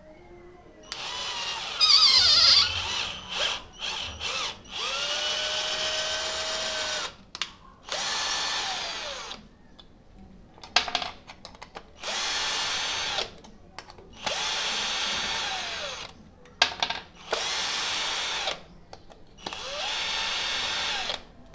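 Ingco cordless drill turning small screws in a wooden block in about seven short runs of a second or two each. The motor whine rises as it spins up and falls away as it stops, with short clicks between runs.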